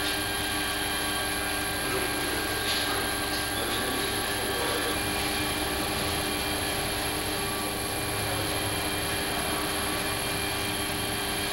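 A steady mechanical hum of several constant tones over a hiss, unchanging in level, with a faint tap about three seconds in.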